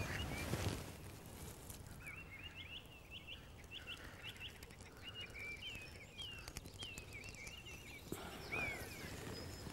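A small songbird chirping repeatedly in a run of short, high, quickly repeated notes. Brief rustling near the start and again near the end as dry twigs are handled while a small fire is lit.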